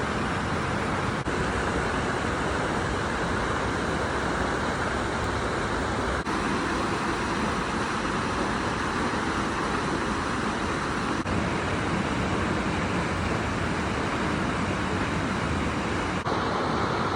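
Stream water flowing steadily: a dense, even rush.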